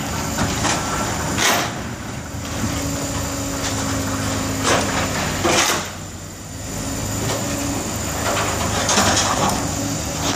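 Mobile crane engine running steadily under a lift, with several short loud rushes of noise every one to three seconds.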